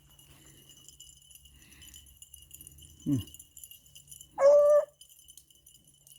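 Beagles running a rabbit trail and giving tongue: one dog gives a short howl that drops in pitch about three seconds in, and another gives a brief level bay about a second later.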